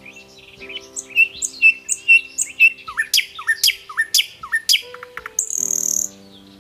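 Small birds singing: a run of quick high chirps and short falling whistles, with a brief high trill near the end, over soft sustained background music.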